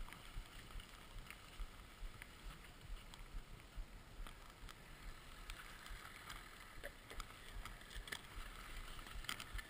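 Skis running through deep powder snow, heard as a faint, muffled low rumble with a light hiss and scattered small clicks through a helmet-mounted camera.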